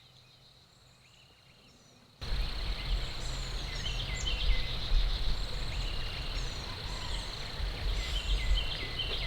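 Songbirds singing in short, repeated falling phrases over a low wind rumble on the microphone. The rumble comes in abruptly about two seconds in; before that only faint chirps are heard.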